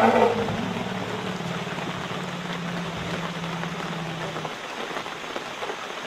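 Asian elephant herd calling at night: a loud call ends about half a second in, and a low, steady rumble follows and stops about four and a half seconds in. A constant hiss of rain or rainforest insects runs underneath.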